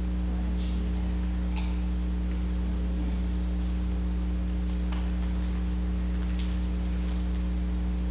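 Steady electrical mains hum with its low buzz and overtones, unchanging throughout, with a few faint brief ticks and rustles over it.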